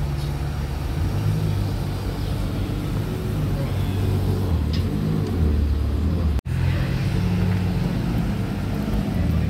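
Ferrari 812 GTS's V12 engine running at low revs as the car creeps out and rolls past at walking pace, its low note shifting up and down slightly with light throttle. The sound breaks off for an instant about six seconds in.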